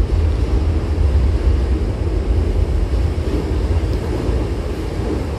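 Steady low rumble of a Hankyu Kobe Line electric train running on the rails, heard from inside the carriage, easing slightly in loudness toward the end.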